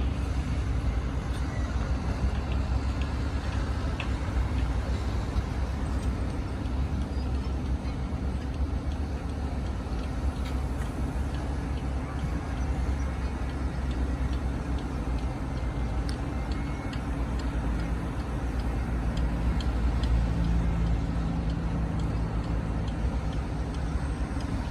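Doosan DX225LC excavator's diesel engine running steadily, a constant low hum that shifts a little in pitch near the end, with scattered light clicks over it.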